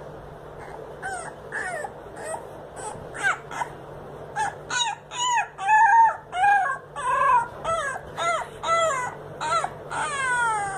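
Beagle puppy howling: a run of short, high, wavering yips and baying howls, sparse at first, then louder and closer together from about four seconds in, ending with one longer howl that falls in pitch.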